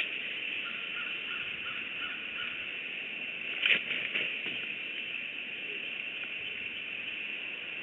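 Bald eagle taking off from its stick nest, a short burst of heavy wingbeats and nest rustle about three and a half seconds in, over a steady high hiss.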